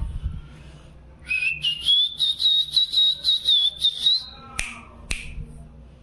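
Cockatiel whistling: one long high whistle that glides up at the start, then holds its pitch with a quick pulsing warble, followed by two short sharp sounds.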